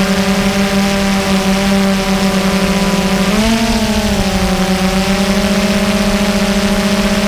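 DJI Phantom 2 quadcopter's electric motors and propellers humming steadily, heard close up from the camera on board. A little past three seconds in, the pitch rises briefly as the motors speed up, then settles back about a second later.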